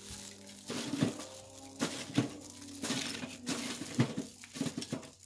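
Foil-wrapped beef rib pushed down into hot charcoal embers: aluminium foil crinkling, coals crunching and cracking in irregular sharp crackles.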